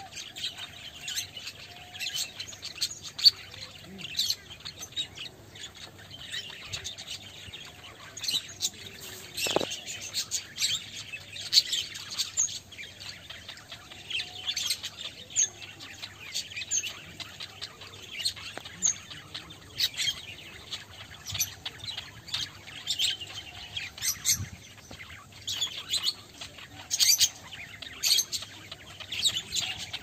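A flock of budgerigars chattering, a dense stream of short high chirps and twitters without pause.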